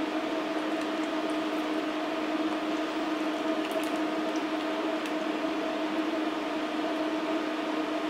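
Steady electric hum of a running kitchen appliance: a constant two-note drone over a fan-like hiss, with a few faint clicks.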